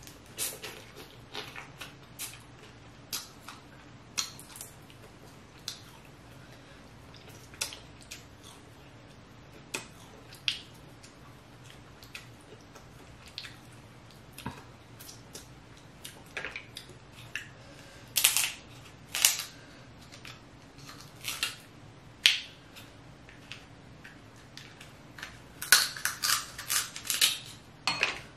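Close-up eating sounds of a snow crab and lobster seafood boil: chewing, with scattered sharp clicks and cracks of crab shell being broken. There is a quick run of cracks near the end.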